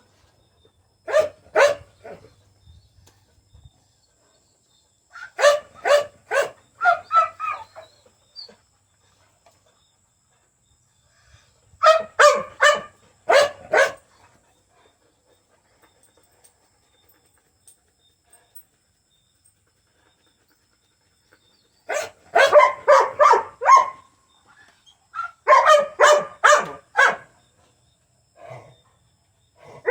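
An animal wheezing in about five bouts of quick, short, pitched breaths, with silent gaps of several seconds between bouts.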